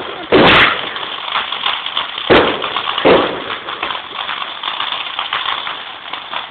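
Fireworks going off: three loud bangs, just under a second in, at about two and a half seconds and at about three seconds, followed by a dense run of small crackles.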